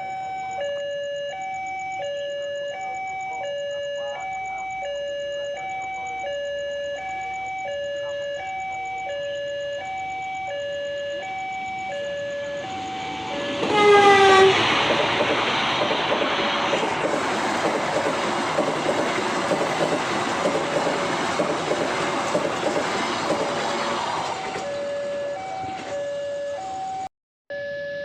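A level-crossing warning signal sounding a steady alternating two-note chime. About halfway through, a train sounds a short loud horn blast and passes with a loud rush of rail and wheel noise for about ten seconds, after which the crossing chime is heard again.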